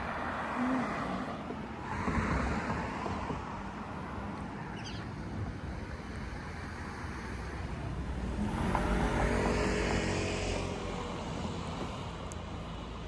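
Road traffic: motor vehicles passing one after another, the loudest pass, with an engine hum, about nine seconds in.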